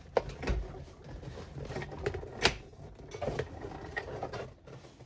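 Plastic center-console trim of a 2002 Mitsubishi Lancer being worked loose and slid off: a series of light knocks and clicks, the sharpest about two and a half seconds in.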